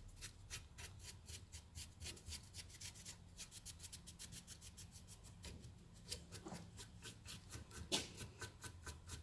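Faint, quick rubbing strokes, about four a second, as dust and grime are scrubbed off an old speaker's cable.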